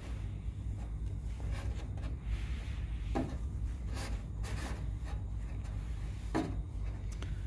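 Microfibre cloth rubbing over a plastic motorcycle fairing panel, wiping off dust, with a few short scuffs as the cloth and hand move across it. A steady low hum sits underneath.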